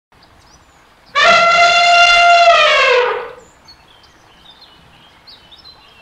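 An elephant trumpets once: a loud, held call of about two seconds that drops in pitch at its end. Faint short high chirps follow.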